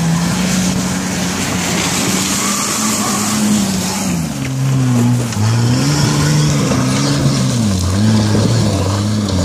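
Off-road Jeep engine under hard load on a steep loose-rock climb: steady at first, then revved up and down repeatedly from about four seconds in as the driver works the throttle. Wheels spin on loose rock and dirt beneath it.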